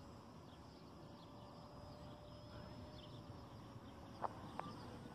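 Faint, steady whine of a small RC foam airplane's brushless electric motor and three-bladed propeller in flight, sinking slightly in pitch near the end, over a low background hiss. Faint high chirps come and go, and two sharp clicks sound about four seconds in.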